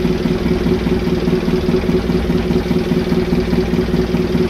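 Boat engine running steadily with an even, unchanging hum.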